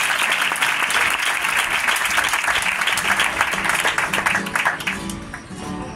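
Audience applause that dies away about five seconds in, as a flamenco guitar starts plucking the opening notes of the next piece.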